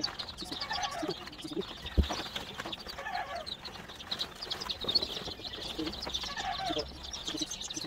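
A brooder full of newly hatched upgraded native chicks peeping constantly, many short high chirps overlapping. A single thump about two seconds in.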